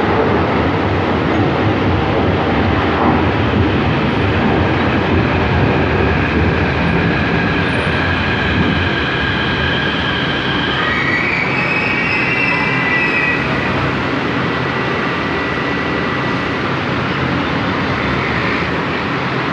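São Paulo Metro Line 5 Frota P metro trains running at the station platform: a steady loud rumble of wheels on rail. High whining and squealing tones rise in over the middle of it, with a brief upward glide about halfway through, as train P23 pulls in alongside.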